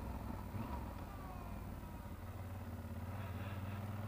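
Yamaha XT1200Z Super Ténéré's parallel-twin engine running at low revs at slow riding speed, its note steadying and rising slightly about halfway through as the bike pulls along.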